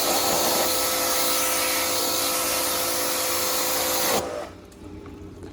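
Electric pressure washer used for split air-conditioner cleaning, running with a steady motor whine under a spray hiss, then cutting off suddenly about four seconds in.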